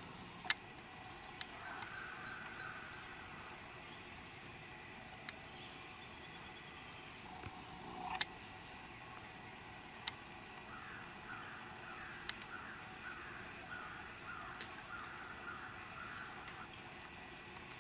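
Summer woodland ambience: a steady high-pitched insect drone, with a run of short animal calls about eleven seconds in and a few faint clicks.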